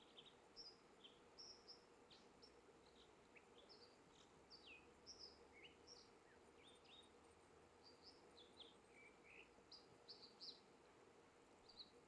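American dipper singing: a faint, long run of short, high whistled notes, a few each second and some sliding down in pitch, over the steady hush of a flowing stream.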